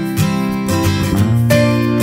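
Background music: acoustic guitar strumming chords, with a chord change about one and a half seconds in.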